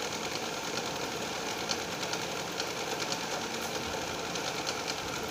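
A small motor running steadily in the background, with a few faint ticks.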